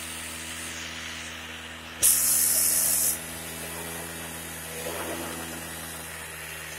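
Yamaha Razz scooter's 49cc two-stroke engine idling steadily, running again after a carburetor repair. About two seconds in, a loud hiss cuts in for about a second and stops suddenly.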